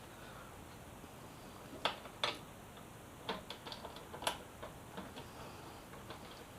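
Scattered light clicks and taps of bolts and headlight parts being handled as the headlight's mounting bolts are threaded in by hand. The sharpest clicks come about two seconds in and again a little past four seconds.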